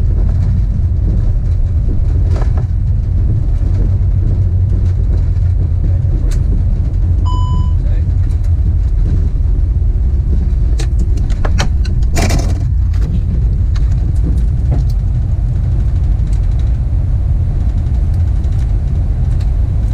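Steady, loud low rumble of an Airbus A380 rolling out on the runway after touchdown, heard inside the cockpit. A short electronic beep sounds about seven seconds in, and a brief noisy burst comes about twelve seconds in.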